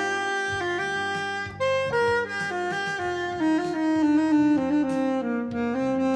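Instrumental music: a lead melody of held notes stepping up and down over a backing track with a bass line.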